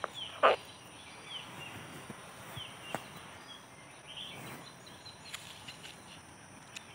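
Birds chirping in the background: scattered short, quick falling notes over a faint outdoor hush, with a few soft clicks.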